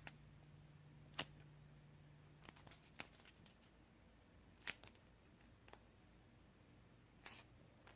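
Near silence with a few faint, short handling clicks and rustles as a foam squishy and its plastic packaging are handled, over a faint low hum that stops about three seconds in.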